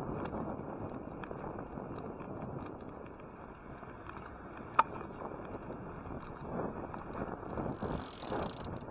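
Bicycle riding on a paved road, picked up by a bike-mounted camera: steady road and wind rumble with light, irregular mechanical clicking and rattling. One sharp click about halfway through is the loudest sound, and a brief hiss comes near the end.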